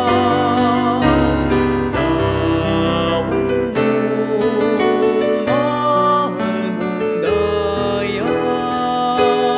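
A voice singing a Kapampangan liturgical hymn with vibrato on its held notes, over keyboard accompaniment.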